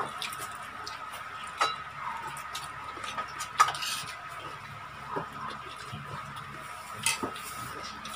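Plates, a bowl and a spoon clinking and tapping as food is served and eaten, a few sharp clicks scattered through. A faint steady high tone runs underneath.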